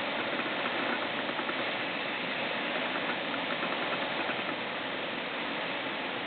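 Steady rush of typhoon wind and heavy rain.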